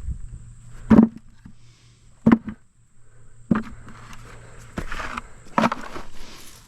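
Harvested potatoes dropped by hand into a pail, four dull knocks a second or so apart, with rustling and scraping of dry soil and potatoes being gathered between them.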